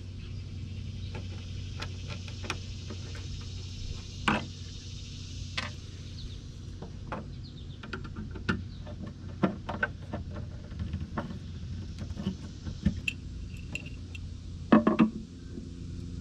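Hand screwdriver working small screws out of a metal door stay on a wooden cabinet: scattered light metallic clicks and scrapes, with a louder clack about four seconds in and a cluster of louder knocks near the end, over a steady low hum.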